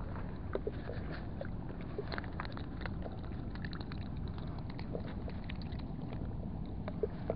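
Steady low outdoor rumble of waterside harbour noise, with scattered light clicks and taps throughout and a slightly sharper tap near the end.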